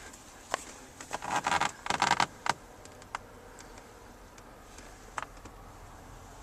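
Handling noise: a quick cluster of rustles and sharp clicks about one to two and a half seconds in, then a single click about five seconds in, over a quiet background.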